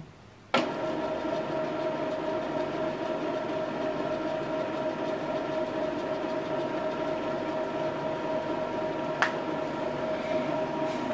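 Epson XP-3200 inkjet printer running its first-time ink-charging initialization: a steady mechanical whir with a steady tone that starts suddenly about half a second in. A single sharp click comes near the end.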